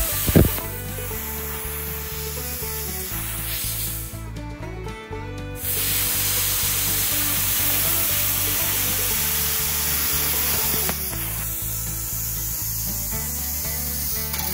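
Plasma cutter torch hissing steadily as its arc cuts through a steel circular saw blade. The hiss stops for about a second and a half around four seconds in, then starts again. Background music plays underneath.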